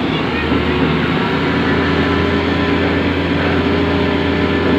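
Rotary piling rig's diesel engine and hydraulics running steadily under load while the rig lifts its kelly bar and drilling tool out of a bored pile hole.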